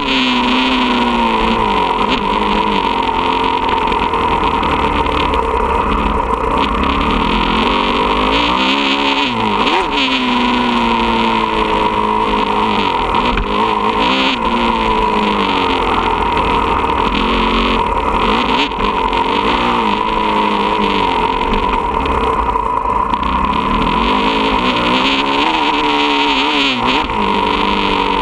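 Motocross dirt bike engine being ridden hard, revving up and falling back again and again as the rider works the throttle and gears on the dirt track.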